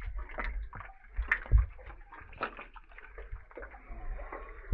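Water sloshing and splashing around a swimmer moving through an underground cave river, with a few low, dull thumps.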